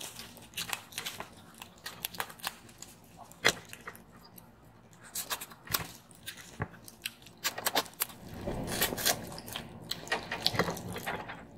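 Cooked crab shells cracking and snapping as they are pulled apart by gloved hands, with plastic gloves crinkling and close-up chewing: a scatter of sharp clicks and crackles, busier for a moment after about eight seconds.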